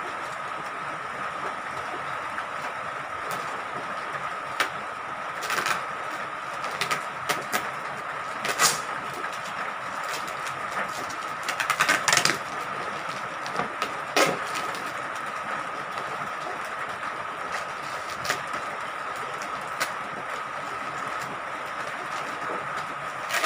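Scissors snipping and plastic packaging crinkling as an orange courier pouch is cut and torn open: scattered clicks and rustles, busiest about halfway through, over a steady hiss with a faint high tone.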